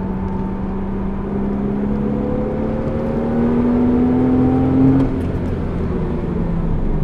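Porsche Cayman's engine accelerating hard, heard from inside the cabin over road and tyre noise. The engine note climbs slowly, then drops about five seconds in as the car shifts up and keeps gaining speed.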